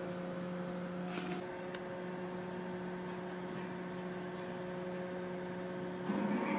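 A steady, even hum made of several held pitches, whose upper tones shift slightly about a second and a half in and again near the end, with a brief rustle about a second in.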